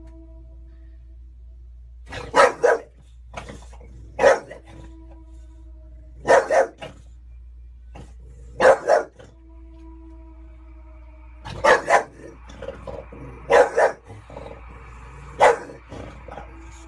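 Dog barking, mostly in quick pairs of barks every two seconds or so, starting about two seconds in, over a steady low hum.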